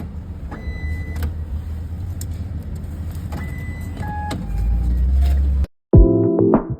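Street traffic rumbling, with a vehicle passing close a little past four seconds in. The sound cuts off abruptly near the end, and electronic music with a steady beat starts.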